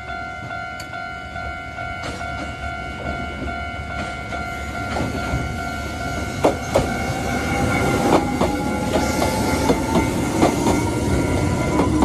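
Japanese level-crossing warning bell ringing steadily at its normal tone while a Kōnan Railway electric train approaches and runs over the crossing. From about halfway, wheels clack over the rail joints in growing strokes, and a whine rises in pitch as the train comes up.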